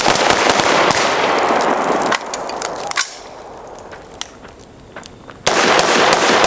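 Several AR-15-style rifles firing rapid, overlapping strings of shots from a firing line. The shots thin out to a few scattered ones about two seconds in, and a fresh dense volley starts near the end.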